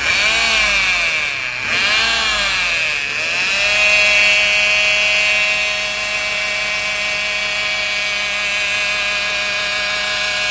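Peugeot 208 three-cylinder PureTech engine running with a loud whining noise made of several tones together, rising and falling in pitch a few times in the first few seconds, then holding steady. The mechanic takes it for the oil pump struggling to circulate oil: its pickup is clogged with rubber shed by the disintegrating oil-bathed timing belt.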